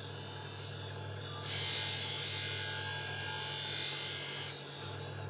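Large electric grinding wheel running with a steady hum. A Damascus steel sword blade is pressed against it about a second and a half in, giving a harsh, high grinding hiss for about three seconds before it is lifted off again.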